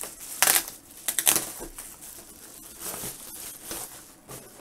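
Plastic bubble wrap crinkling and rustling as it is pulled off a cardboard box by hand. It comes in a few separate rustles, loudest in the first second and a half, then softer ones.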